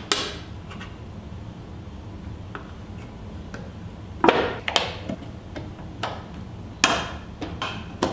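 Metal lid of a gallon paint can being pried up with a thin metal tool worked around the rim: a run of sharp metallic clicks and pops with a short ring, the loudest a little past four seconds in and again near seven seconds.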